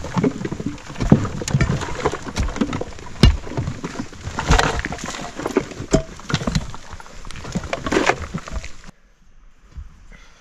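Hand tools digging into earth and stones: irregular knocks and scrapes as the ground is dug out. The sound stops suddenly about nine seconds in, leaving a quiet background.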